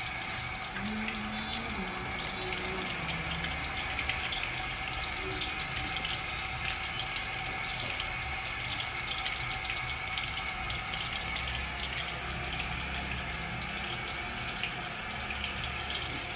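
Chicken pakodi deep-frying in hot oil in a kadai: a steady sizzle with fine crackling.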